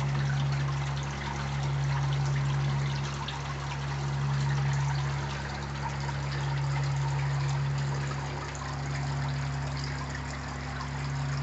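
Water spilling in many thin streams off the ledge of a rock waterfall into a pond, over a steady low hum from the pond pump, which is noisy while it beds in.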